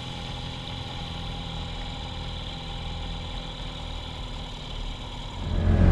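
Small two-stroke outboard motor idling steadily on the dinghy's transom, its carburetor freshly serviced and idle speed just set with the idling screw. Near the end a much louder, deeper sound swells in.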